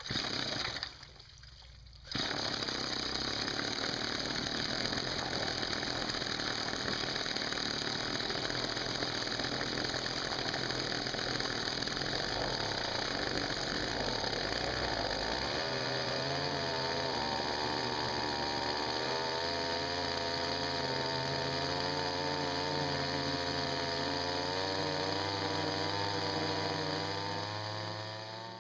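Ryobi two-stroke string-trimmer engine, rigged as a small boat motor with its propeller in a tub of water, starting after a short first burst and catching about two seconds in, then running steadily at high speed as the propeller churns and sprays the water. Its pitch climbs gradually through the second half, and it cuts off at the very end.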